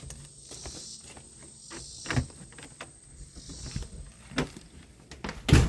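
Insects chirping steadily in a high pulsing drone, with a few short knocks, the loudest one near the end.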